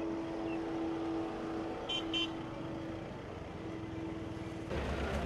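Road traffic: cars driving slowly past over a steady engine hum, with two short high-pitched beeps about two seconds in. Near the end the sound jumps abruptly to louder, busier street noise.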